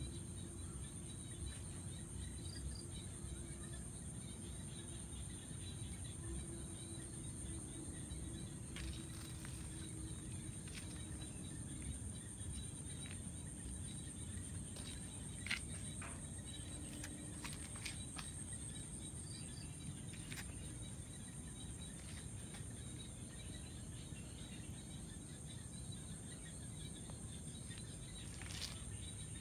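Steady high-pitched insect chorus buzzing throughout, over a low background rumble, with a few scattered short clicks.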